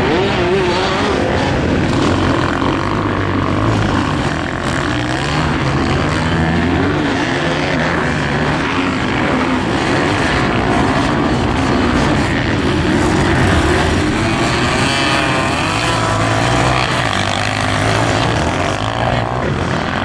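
Several motocross dirt bikes racing, their engines revving up and down in pitch as they overlap, loud and continuous.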